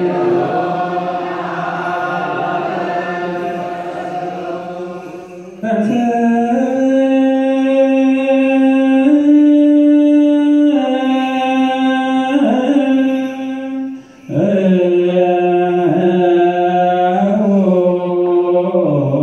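Ethiopian Orthodox liturgical chant, the misbak (the psalm verse sung before the Gospel). It starts as a blend of voices, then from about six seconds in one clear voice holds long, slowly moving notes, with a brief break about fourteen seconds in.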